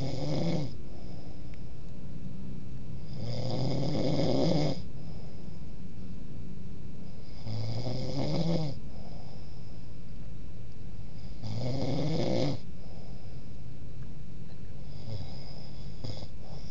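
A man snoring in his sleep, one snore on each in-breath about every four seconds, each rising in pitch and lasting about a second; the last one near the end is fainter. A steady low hum runs underneath.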